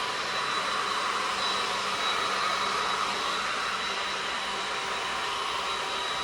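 Hand-held hair dryer running steadily, blowing on the wig glue to dry it so the lace will stick. A steady hiss of air with a faint high whine.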